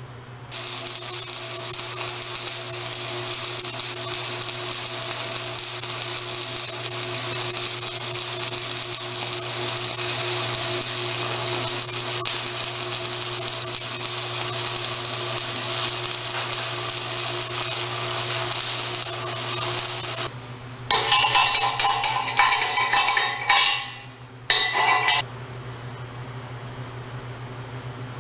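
Stick (arc) welding: the arc gives a steady crackling hiss for about twenty seconds. Near the end come two shorter, louder, harsher bursts, all over a steady low hum.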